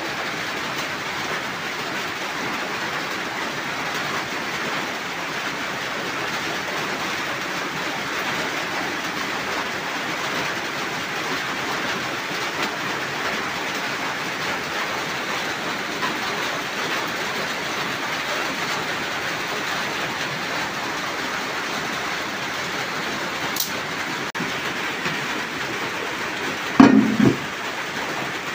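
Steady rain falling, an even hiss throughout, with two loud knocks close together near the end.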